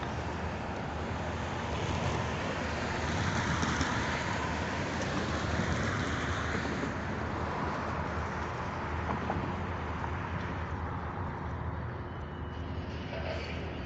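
Road traffic: a car passes by, swelling and fading with the loudest point about four seconds in, over a steady low rumble.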